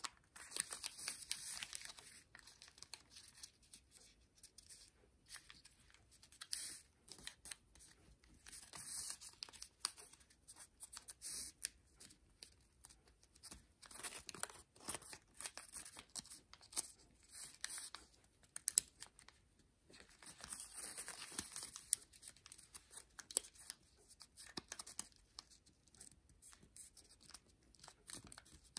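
Thin kami origami paper rustling and crinkling as hands fold and crease it, in irregular bursts with sharp crackles.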